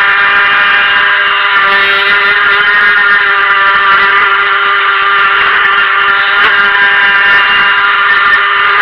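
Stock brushed silver-can electric motor of a Helion Rivos RC monohull boat running steadily under throttle: a loud, even whine that holds nearly one pitch.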